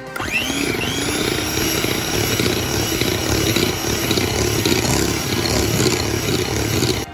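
Electric hand mixer starting up, its motor whine rising in pitch over the first second, then running steadily as the beaters whip an egg into creamed butter and sugar.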